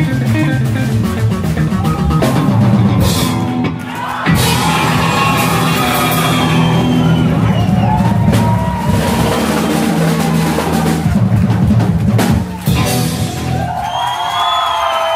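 Live band of upright double bass, drums and electric guitar playing the loud, drum-heavy closing bars of a tune, with drum rolls and cymbal crashes over walking bass notes. Near the end the crowd starts cheering.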